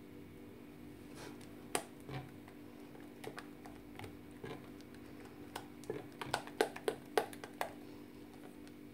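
Silicone spatula stirring thick whipped cream in a small bowl, with scattered clicks and taps of the spatula against the bowl, most of them bunched together about six to seven seconds in, over a faint steady hum.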